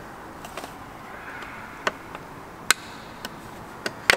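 A handful of sharp clicks and taps, irregularly spaced, as a carbon-fibre mirror cap is pressed and shuffled onto a BMW M2's wing-mirror housing while its clips are lined up with the holes.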